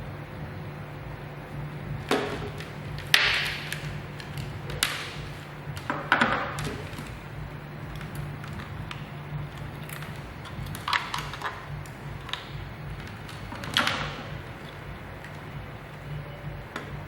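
A series of sharp clicks and knocks, half a dozen or so spread irregularly, over a steady low hum.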